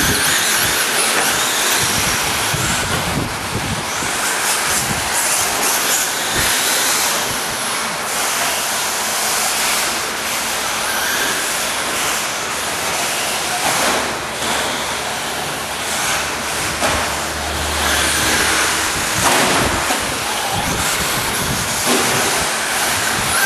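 RC cars, among them a Traxxas Slash short-course truck, running on an indoor dirt track: a steady noise of motors and tyres on the dirt, with a few knocks.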